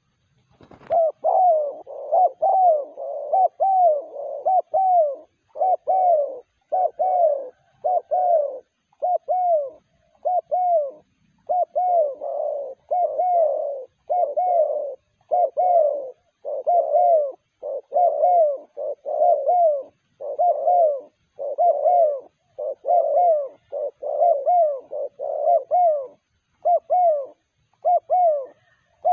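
Spotted dove (terkukur) cooing over and over, its phrases of low, bending coo notes following one another with only short gaps. A single sharp knock sounds just as the cooing starts, about a second in.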